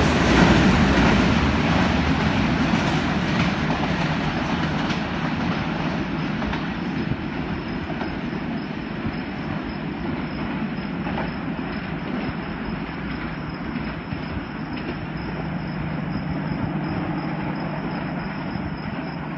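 Express passenger train rushing away after a fast run-through, its rumble fading and growing duller over the first few seconds. A steady low rumble and a faint steady high tone remain.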